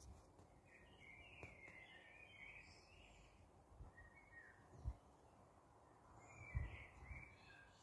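Faint birdsong, a small bird twittering in two spells: one from about a second in, the other near the end. Two dull low bumps, the loudest sounds, come in between and near the end.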